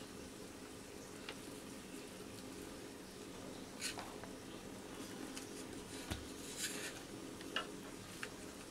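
A kitchen knife cuts through thick fried egg omelettes on a plastic tray. There are a few faint scattered clicks and scrapes as the blade presses through and meets the tray, over a low steady hum.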